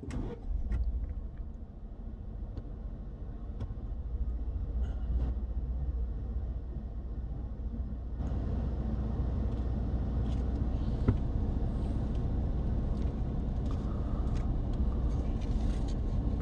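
A vehicle driving slowly, heard from inside the cab: a steady low engine and road rumble, growing a little louder and brighter about eight seconds in, with a few faint clicks.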